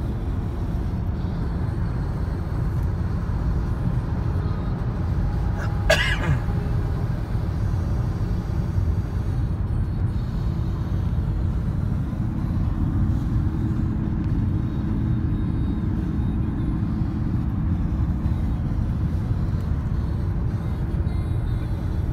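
Steady road and engine noise inside a car cabin at highway speed, with one brief sharp sound about six seconds in.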